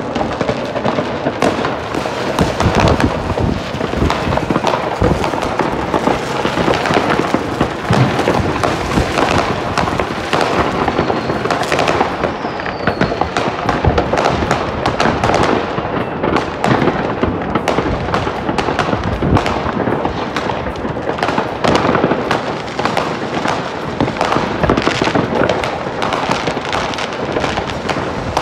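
Many fireworks going off at once all around: a dense, unbroken crackle of bangs and pops from rockets bursting, with a couple of short whistles about halfway through.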